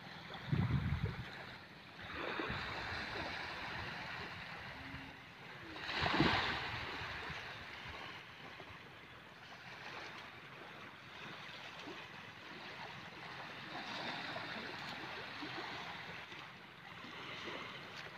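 Small waves washing up on a sandy shore, a steady rush of surf with wind gusting on the microphone. A louder wash about six seconds in.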